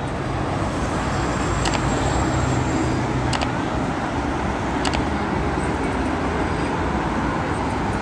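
Dense multi-lane road traffic, a steady rumble of cars, vans and buses. A few sharp ticks come through it, about a second and a half apart.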